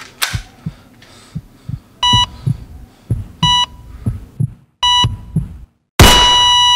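A sound-effect heartbeat beating fast, about three beats a second, under a heart monitor beeping three times about 1.4 s apart. Near the end a loud gunshot bang cuts in, and the monitor goes into a steady flatline tone, the sign of the heart having stopped.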